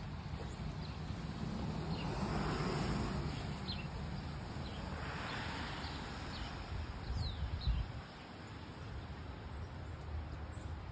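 Outdoor background noise: a steady low rumble with two passing swells of hiss, and a few faint, short bird chirps.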